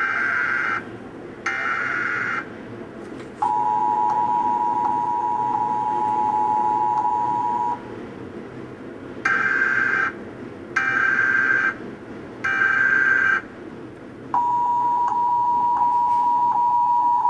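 Emergency Alert System broadcast tones: two buzzy one-second data bursts, then the steady two-note attention signal held about four seconds. Three more data bursts follow, and the attention signal starts again about three seconds before the end.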